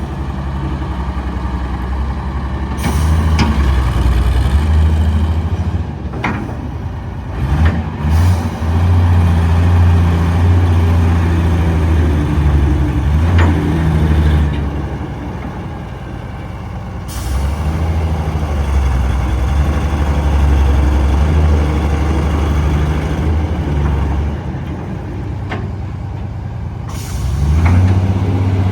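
Hitachi EX160WD wheeled excavator's diesel engine running, its low note swelling in long bouts and easing back between them, with a few short knocks along the way.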